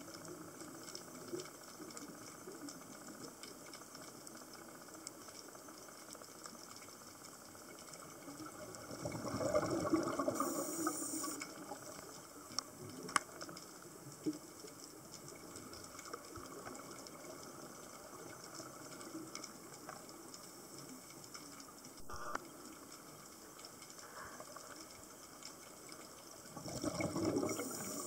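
Underwater sound picked up by a waterproof compact camera: a scuba diver's exhaled regulator bubbles burble twice, about nine seconds in and again near the end. Between them is a steady hiss with scattered sharp clicks.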